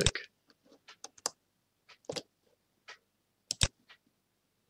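Computer mouse button clicks: a few faint clicks and taps, then a sharp press-and-release click about three and a half seconds in.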